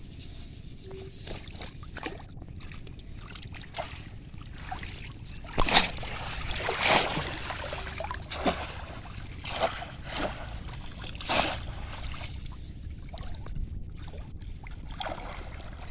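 Shallow water splashing and sloshing in irregular strokes, loudest and busiest in the middle stretch, over a steady low rumble.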